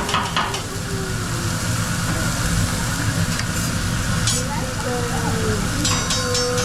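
Food sizzling on a hot griddle during the volcano onion trick, over a low background hum. A steady tone comes in near the end.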